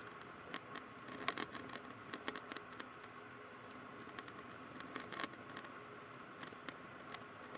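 Faint steady hiss on the cockpit intercom and radio audio with scattered small clicks and crackles, a few of them close together between about one and two and a half seconds in.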